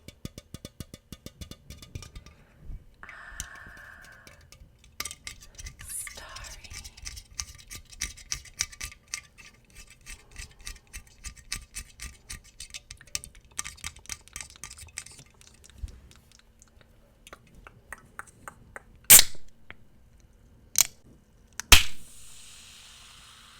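Rapid tapping and clicking on a Starry soda, then three loud sharp cracks near the end, the last one followed by a fizzing hiss as the soda is popped open.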